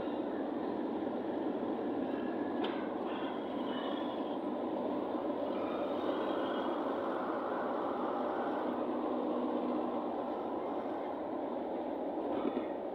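Steady rushing road and wind noise from a moving vehicle.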